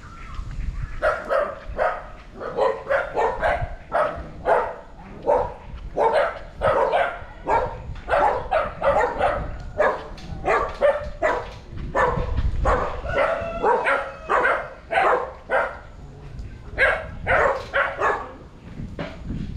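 A dog barking over and over, about two barks a second, with a short pause near the end.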